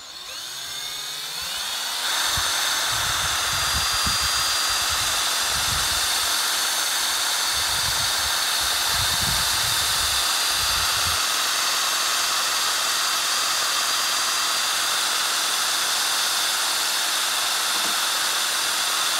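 Hitachi 18-volt cordless drill spinning up, rising in pitch over the first two seconds, then running steadily as it drives a welded-bolt stirrer through a gallon can of paint. Irregular low rumbling from the stirrer churning the paint runs under the whine for the first ten seconds or so.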